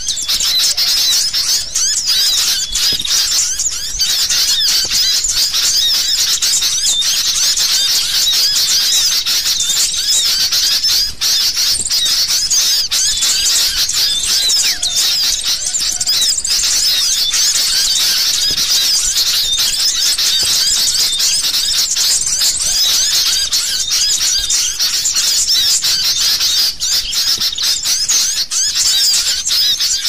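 Dense, nonstop chorus of many overlapping sooty-headed bulbuls (kutilang) chattering and squealing, a noisy, agitated-sounding bird-luring (pikat) recording.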